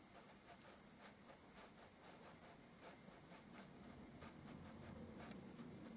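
Near silence, with faint scratchy ticks of a handheld wall detector sliding slowly across painted plaster, and a faint low hum that grows in the second half.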